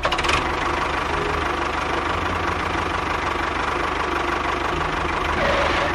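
Miniature tractor running with a steady engine sound and a fast, even knock, starting abruptly.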